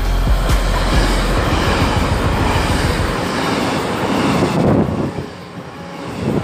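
Electric express train passing at speed close by, its wheels clattering rapidly over the rail joints under a rush of air and rolling noise. The noise eases off about five seconds in as the last cars go by.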